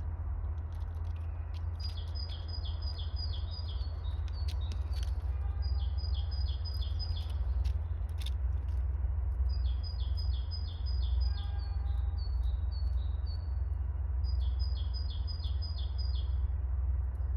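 A small bird singing a quick phrase of six or seven similar high notes, repeated four times a few seconds apart, over a steady low rumble. A few sharp clicks sound between the phrases.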